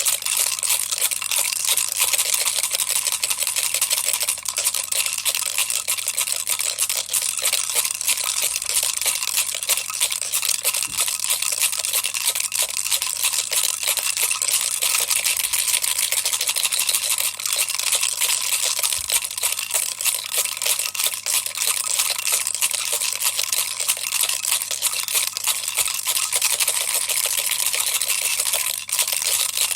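Baby's toy rattle shaken continuously: a dense, steady stream of rapid rattling clicks with no pauses.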